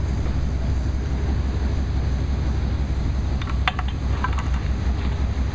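A steady low rumble, with a few light metallic clinks a little past halfway, as a floor jack and its handle are moved.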